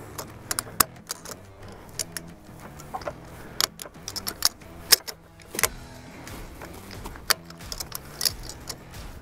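Ratchet strap buckle being worked to release tension a click at a time, giving irregular sharp metallic clicks and rattles as the load is let down in a controlled way.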